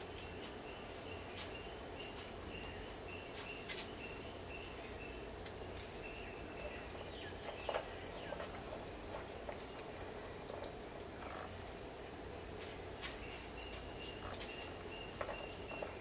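Insects trilling steadily at a high pitch, with short repeated chirps coming and going, and a few sharp clicks, the loudest about halfway through.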